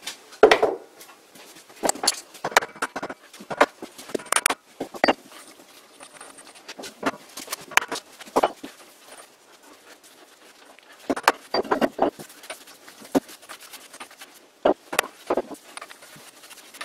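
Irregular metallic clicks, taps and knocks as an old metal lathe's spindle, cone pulley and front collar are handled and worked on by hand during headstock disassembly, the loudest knock about half a second in.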